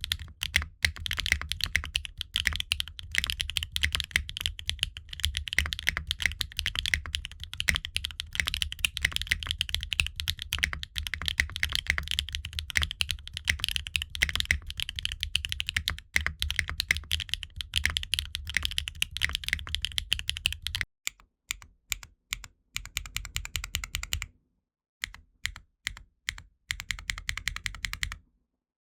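Mechanical keyboard typing on HMX Meteor linear switches in an aluminum-cased, gasket-mounted Qwertykeys Neo65 with ABS Cherry-profile keycaps. The keystrokes come fast and continuously at first. About 21 seconds in, they change to shorter runs of keystrokes with brief pauses between them.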